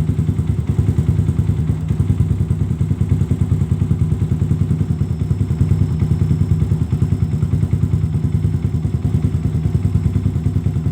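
A 2009 first-generation Yamaha Vixion's single-cylinder four-stroke engine idles steadily through an aftermarket stainless-steel PDK exhaust. The exhaust note is deep and bassy, with a fast, even pulse.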